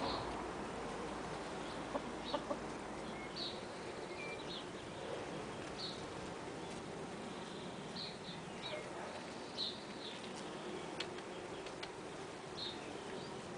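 Domestic hens clucking softly, with short high chirps every second or so.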